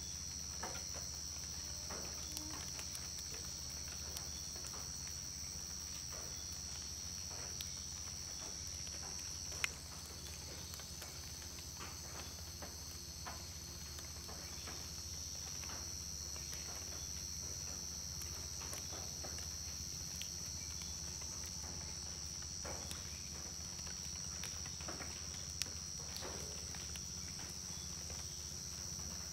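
Amazon rainforest insect chorus: a steady, shrill high-pitched drone over a low steady rumble, with scattered faint ticks and patters. There is one sharper click about ten seconds in.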